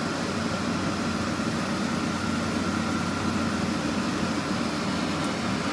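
Steady mechanical background hum with a faint thin high whine, unbroken and even, with no knocks or clicks.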